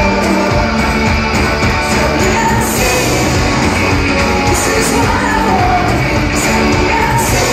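Live pop-rock band playing at full volume, with a woman singing lead over electric guitars, keyboards and drums, heard from within the audience in a large hall.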